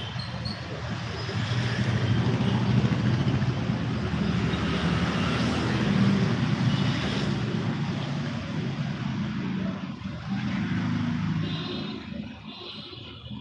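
Motor vehicle passing on the street, its engine rumble and road noise swelling over the first few seconds and fading away near the end.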